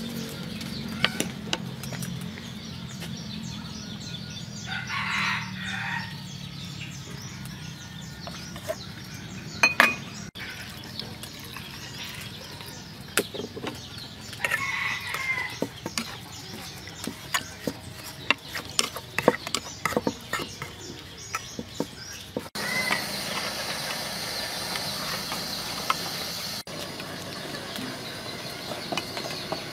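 Wooden spoon scraping and knocking against an aluminium pot while stirring a paste, with chickens calling twice in the background. A steady hiss comes in about two-thirds of the way through.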